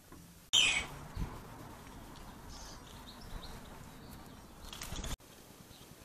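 Small finches at a garden seed feeder: a sudden loud rustle as the sound starts about half a second in, a knock about a second in, then faint chirps. The sound cuts off abruptly near the end.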